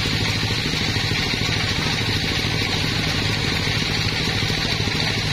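Large sawmill band saw running and cutting along a wide wooden slab as the carriage feeds it past the blade: a steady, unbroken machine drone.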